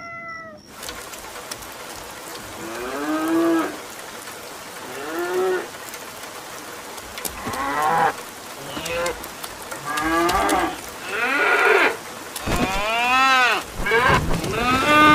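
A short high squeak at the very start, then cows mooing again and again, about eight drawn-out moos that rise and fall in pitch, closer together and louder toward the end, over a steady background hiss.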